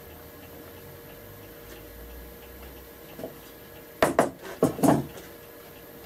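Metal hardware and hand tools clinking and knocking: a quick cluster of four or so sharp strikes with short ringing about four seconds in.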